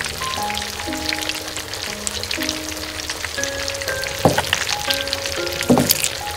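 Masala gravy with a whole fish bubbling and crackling in a miniature steel wok, with a small spoon ladling sauce over the fish, heard twice as louder splashes near the end. A simple melody of background music plays along.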